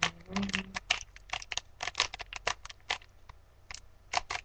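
A standard 3x3x3 Rubik's Cube being turned by hand: quick, irregular plastic clicks and clacks as the layers snap round, several a second.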